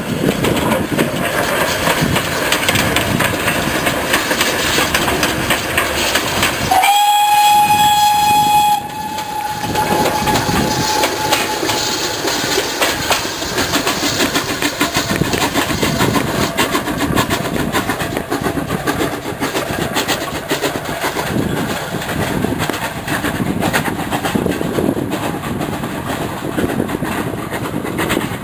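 GWR 0-6-0 pannier tank steam locomotive running past with its autocoaches, a steady rumble of the train on the rails. About seven seconds in its steam whistle sounds once, a single steady note held for about two seconds, ringing on faintly afterwards.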